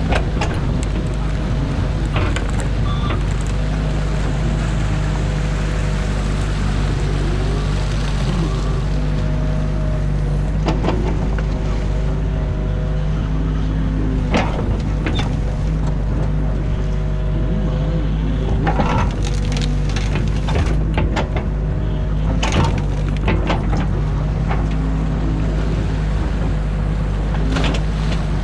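Excavator's diesel engine running steadily, heard from inside the cab, with the hydraulics whining and shifting in pitch as the boom and bucket work. Scattered sharp cracks and knocks come from the bucket tearing into the sticks and mud of a beaver dam.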